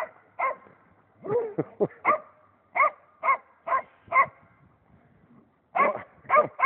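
A dog barking in short repeated barks, about two a second, with a few whining yelps about a second and a half in. The barking pauses for about a second and a half, then starts again, faster.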